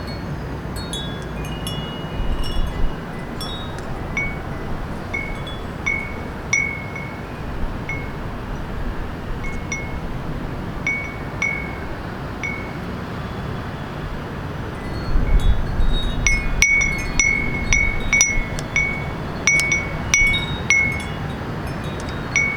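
Small wind chime ringing in the breeze over the steady hum of the city. The strikes are scattered at first, then come quickly one after another in the last third.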